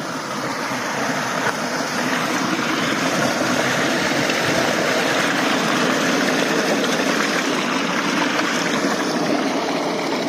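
Steady rush of water pouring out through a trout pond's fully opened outlet, growing a little louder about two seconds in.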